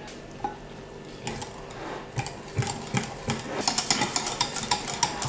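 Wire whisk stirring thick cream in a glass measuring jug, its wires ticking and scraping against the glass in quick, irregular strokes. They start about a second in and grow busier toward the end.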